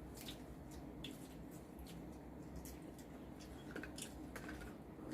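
Faint, wet eating sounds: scattered soft clicks and smacks of chewing and of handling sauce-coated seafood.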